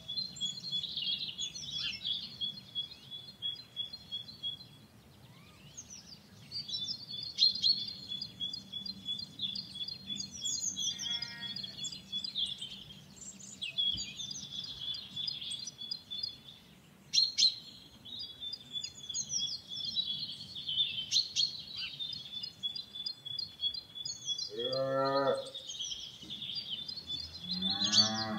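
Farmyard ambience: small birds chirping and twittering continuously. Near the end a cow moos twice, each call about a second long.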